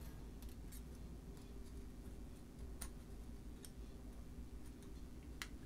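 Faint, irregular light metallic clicks, about eight in all, as a thin metal pick nudges the carry levers of a 1925 Burroughs Class 5 mechanical calculator, working a part jammed in the carry mechanism back and forth to free it.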